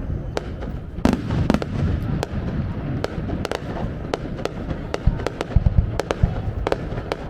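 Fireworks going off in a rapid, irregular series of sharp bangs and crackles over a constant low rumble.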